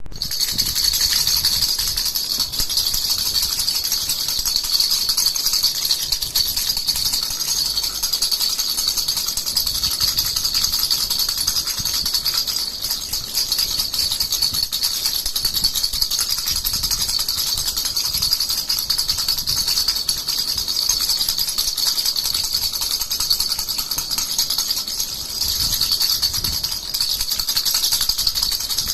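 Baby rattle (jhunjhuna) shaken continuously, a dense high tinkling jingle that dips briefly a couple of times.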